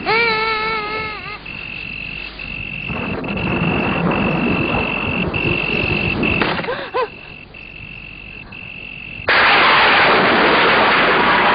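Film soundtrack: a steady high tone over a low rumble, a brief wavering cry about seven seconds in, then a loud rainstorm noise that starts suddenly near the end.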